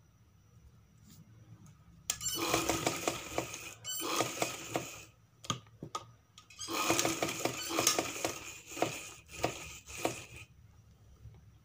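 Sewing machine stitching in two runs of fast, even stitches: the first starts about two seconds in and lasts about three seconds, the second starts just before the middle and lasts nearly four seconds, with a couple of short clicks between them.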